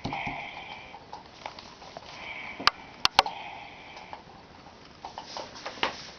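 Interactive plush puppy toy playing puppy sounds through its small speaker: two spells of high, steady tones, with three sharp clicks during the second, and a few softer knocks near the end.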